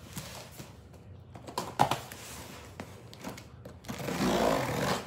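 A package being handled and opened, with scattered rustles and small clicks. There is one sharper click a little under two seconds in, and a longer stretch of louder rustling about four seconds in.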